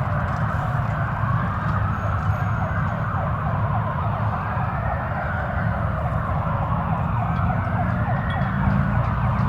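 Emergency vehicle sirens wailing, more than one at once, their tones slowly rising and falling over each other, over a steady low rumble.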